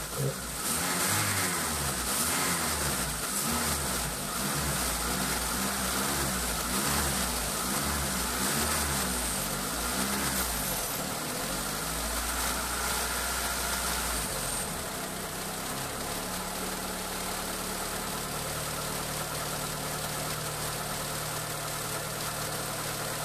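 Mitsubishi 4G93 turbo four-cylinder engine running on oversized 800cc injectors without a reflashed ECU, its speed rising and falling unevenly, then settling to a steady idle about fourteen seconds in.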